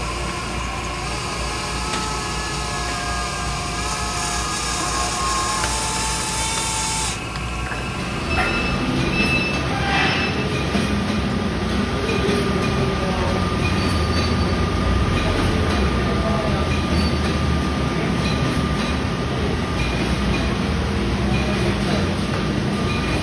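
Deck machinery on a salmon tender whines with shifting pitch as a crane handles a brailer bag. About eight seconds in it gives way to the steady low din of a salmon processing line's machinery, with occasional knocks.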